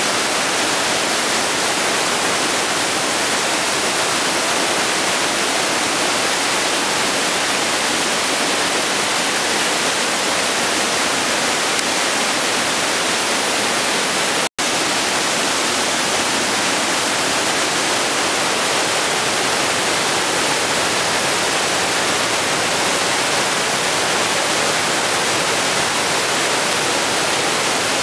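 Hammersbach mountain torrent rushing through a narrow rock gorge: a loud, steady wash of white water, which cuts out for an instant about halfway through.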